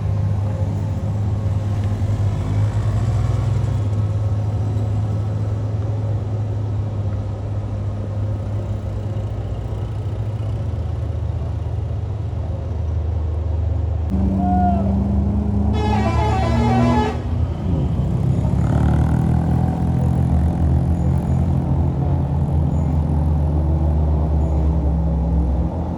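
A heavy vehicle's engine running hard under load on a steep climb, its pitch shifting about halfway through. A little after halfway a bus telolet horn sounds briefly, a fast warbling run of tones lasting about a second.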